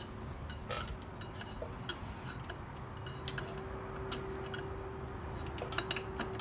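Scattered light metallic clicks and taps from hand work on a motorcycle rear brake caliper, as the brake pads and the pad retaining pin are pushed into place.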